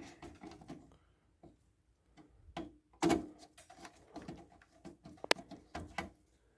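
Handling sounds of work at a garage door opener's wiring: scattered light clicks and knocks, a louder knock about three seconds in and a sharp click a little after five seconds.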